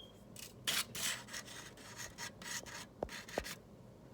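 Dry spice rub being spread over a buttered raw chicken breast: a run of irregular rasping rubbing strokes lasting about three seconds, with two light knocks near the end.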